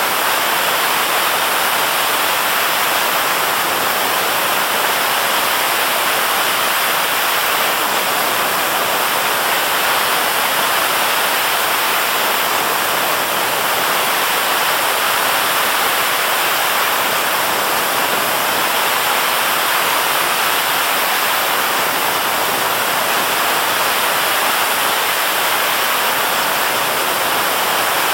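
Steady rushing hiss of a running IS glass-bottle forming machine on the plant floor, even and unbroken with no separate strokes.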